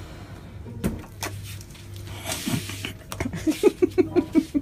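Handling clicks and knocks over a steady low hum, then, about three and a half seconds in, a person's voice in a quick run of short, evenly spaced bursts, like laughter.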